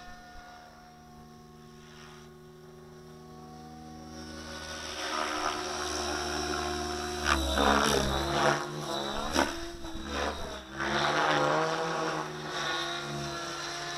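Align T-REX 700E Pro DFC electric RC helicopter flying: the whine of its rotor and motor, rising and falling in pitch as it manoeuvres, fainter at first and much louder from about four seconds in. A few short sharp noises cut through it in the middle.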